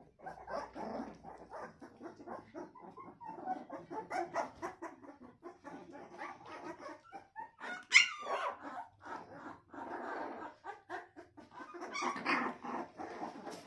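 Pit bull–American bully cross puppies yapping and whimpering in many short, rapid calls, with one louder, high yelp about eight seconds in.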